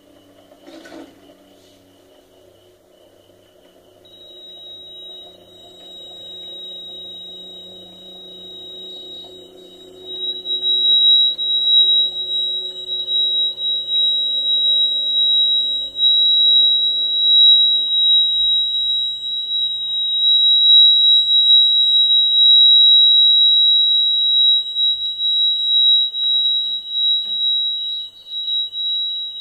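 Electronic buzzer of a water-tank level indicator sounding one steady high-pitched tone, which grows much louder about ten seconds in. A lower hum underneath cuts off about two-thirds of the way through.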